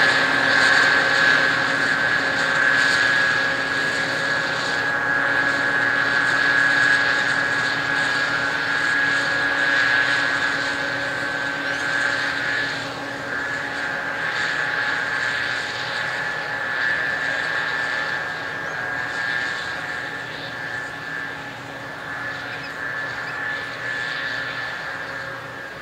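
Combine harvester running while harvesting: a steady mechanical drone with a high whine, growing gradually fainter as the machine moves away.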